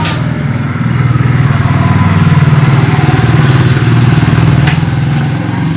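A motorcycle engine running steadily, a little louder in the middle.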